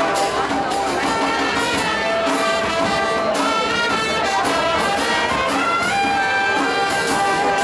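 Brass band playing a tune over a steady beat.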